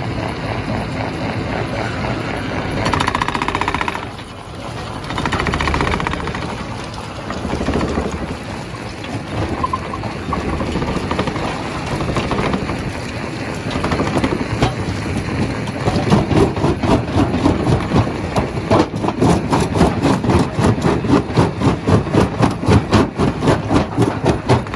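Rock crusher at work on stone, a loud continuous grinding and clattering of rock and machinery. From about halfway through it turns into fast, even pounding at about three beats a second.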